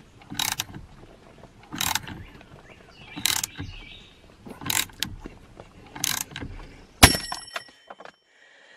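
Ratchet wrench with a T50 Torx bit turning a steering wheel's centre bolt: a short ratcheting stroke about every second and a half, five times. About seven seconds in comes one sharp metallic clank with a brief ringing.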